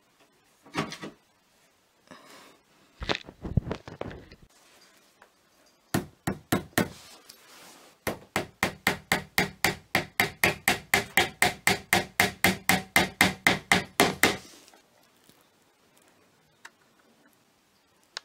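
Hammer tapping small nails into the hardboard back panel of a flat-pack chest of drawers. A few scattered knocks come first, then from about eight seconds in there is a fast, even run of about five strikes a second lasting some six seconds.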